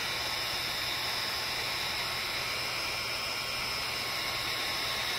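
Heat gun running steadily, its fan blowing an even rushing hiss of hot air with a faint steady whine, warming a rope of butyl headlamp sealant to soften it.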